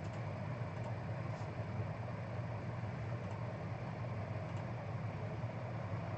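Steady low hum of background room tone, with a few faint ticks.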